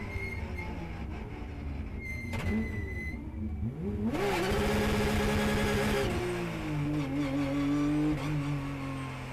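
Porsche Carrera Cup car's flat-six engine heard from inside the cockpit at low speed: the engine note sags, then climbs sharply about four seconds in under acceleration and holds a high steady pitch for about two seconds, before dropping back to a steady lower note.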